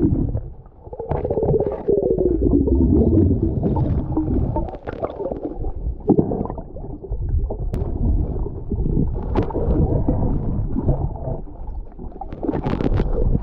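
Muffled underwater sound of water moving around the camera while snorkeling: a low, dull rumble with gurgling and bubbling. Near the end a brighter splash as the camera breaks the surface.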